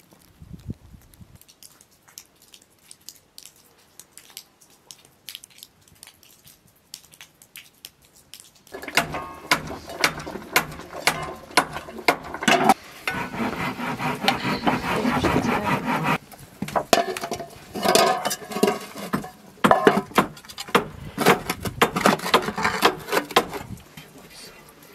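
A large steel cooking pot and its metal lid being handled over a wood fire: a run of clattering knocks and scrapes as the lid is set in place and bricks are laid on top to weigh it down, with fainter ticks before it starts.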